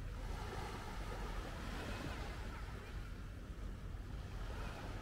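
Calm sea gently washing over a shallow sandy beach, with a steady low rumble of wind on the microphone.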